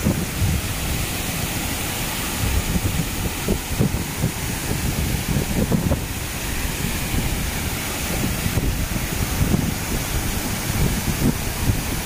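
Waterfall rushing steadily as it cascades over rock into a pool, with wind buffeting the microphone in uneven low gusts.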